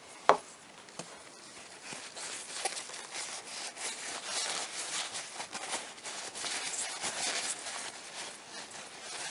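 Solvent-dampened paper towel crinkling and rubbing as it is folded and worked between the fingers, after one sharp knock just after the start.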